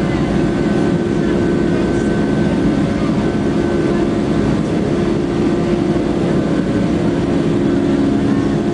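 Boeing 757 jet engines running at a steady pitch, heard from inside the passenger cabin as a constant rumble with a steady hum and a fainter high whine, as the airliner rolls along the ground.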